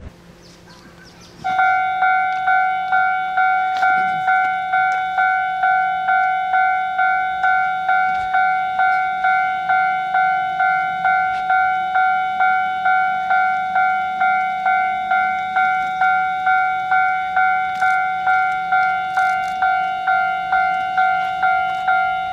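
Railway level-crossing warning bell ringing in a steady, even rhythm of about two strokes a second, each stroke a single ringing tone that dies away, starting about a second and a half in. It is the alarm that sounds as a train approaches.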